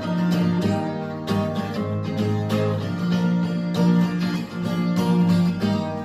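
Acoustic guitar strumming chords in a steady rhythm, each stroke ringing into the next.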